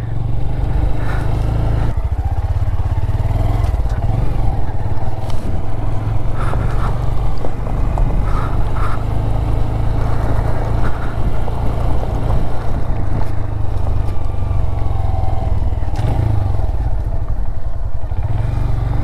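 Small motorcycle engine running steadily with a deep, even rumble as the bike is ridden slowly along a lane and onto a gravel track.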